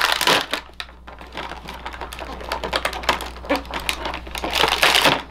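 Plastic action-figure packaging being handled and pulled apart: a dense run of small clicks and crinkles, loudest at the start and again near the end.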